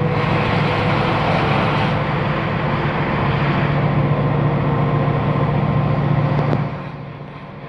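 Steady noise of a car on the move, heard from inside: engine hum and road noise. It drops away sharply near the end.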